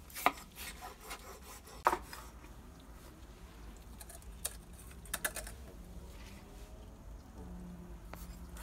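Chinese cleaver chopping shark on a wooden cutting board: two sharp chops, about a third of a second and two seconds in, then a few lighter knocks and clicks.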